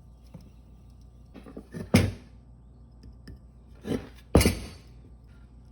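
Knocks and clatter of metal parts from an old electric motor being handled during teardown. There are two loud knocks, about two seconds apart, with smaller taps just before each.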